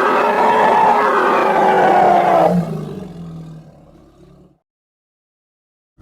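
Gorgosaurus roar sound effect: a long, loud, pitched roar that breaks off about two and a half seconds in. A low rumbling growl follows and fades away.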